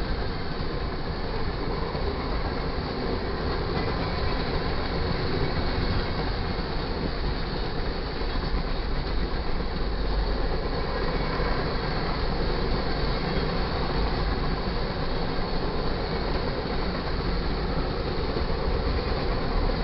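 Freight cars of a passing manifest train rolling by at speed: steady wheel-on-rail noise and clatter that holds even throughout.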